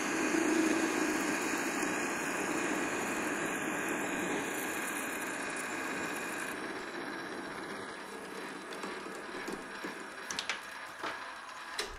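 PM 1127 metal lathe running while a parting tool cuts off a turned workpiece: a steady mechanical running noise that eases off in the later part, with a few sharp clicks near the end.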